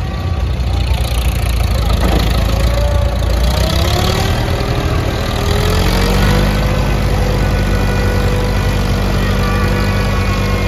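1949 Farmall M tractor's four-cylinder engine running. It speeds up from about two to six seconds in, then holds a steady, higher speed.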